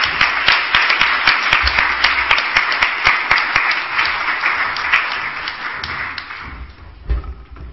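Audience applauding, dying away about six seconds in, followed by a brief low thump near the end.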